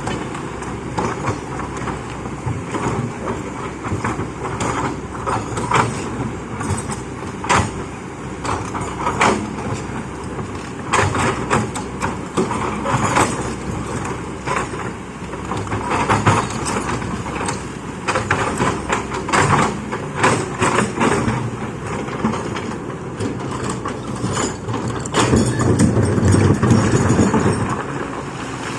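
Heavy diesel machinery running steadily, with many irregular sharp metal clanks and knocks throughout; the engine grows louder for a few seconds near the end.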